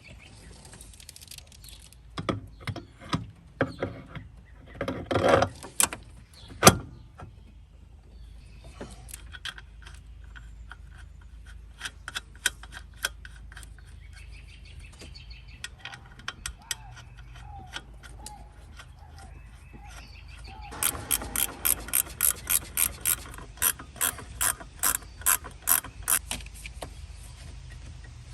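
Ratchet wrench clicking in quick, even strokes, about three clicks a second, near the end, fitting the tightening of a brake master cylinder's mounting nuts or line fittings. Earlier come scattered knocks and clanks of tools and parts, one of them loud.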